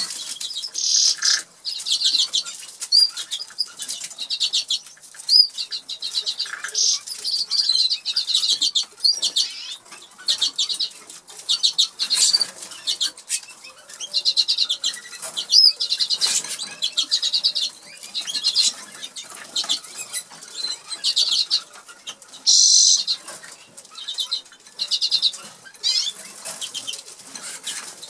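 Norwich canary singing: phrases of rapid high trills with short rising and falling whistled notes, broken by brief pauses.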